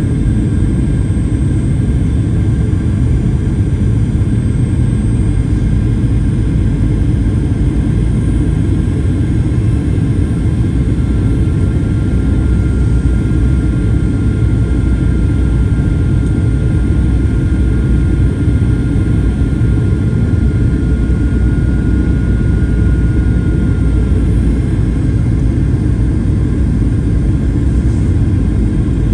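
Steady cabin roar inside a Boeing 737-800 airliner in flight: CFM56-7B engine and airflow noise, deep and unchanging. A faint thin whine rides over it through the middle stretch.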